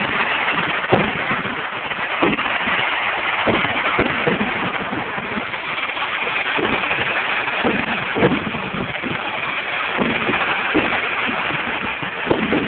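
Fireworks display: aerial shells bursting one after another, sharp bangs about once a second over a continuous crackling hiss.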